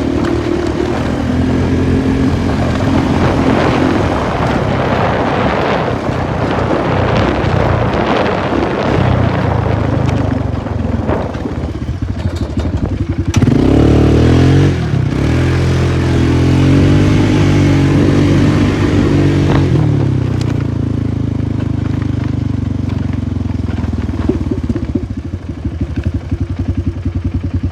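Polaris 450 ATV engine running while being ridden, the pitch climbing under throttle about halfway through. Near the end it drops to a lumpy, pulsing idle.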